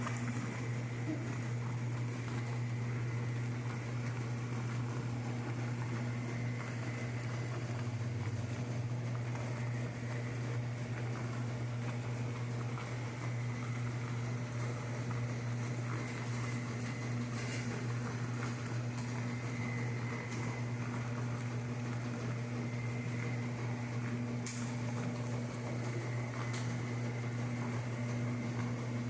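Agitator-type washing machines running, a steady low motor hum with a few faint clicks.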